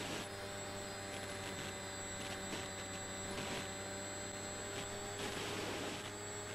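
Steady hum made of several fixed tones, with a hiss that swells briefly a few times.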